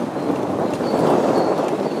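Bicycle riding along a dirt forest track: tyre rumble and rattling over the rough surface, with wind on the microphone.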